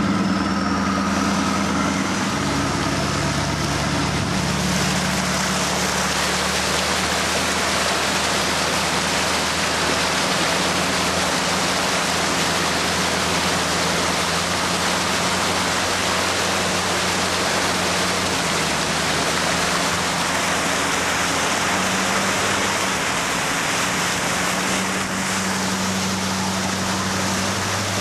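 Hummer H1 wading through deep flood water: a steady rush and splash of water pushed along the side of the truck, over the even hum of its engine.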